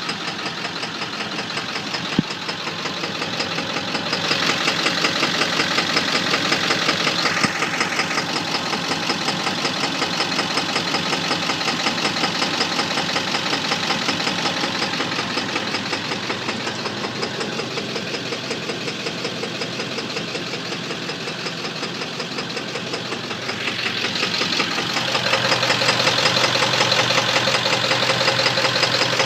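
Ford 7.3 L Powerstroke turbo-diesel V8 running with a knock: a fast, even pulse that grows louder about four seconds in and again near the end.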